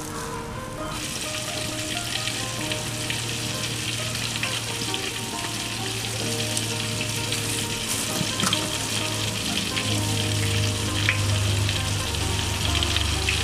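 Hot cooking oil sizzling and crackling in a wok used for deep-frying chicken chop, with scattered small pops; the sizzle sets in abruptly about a second in.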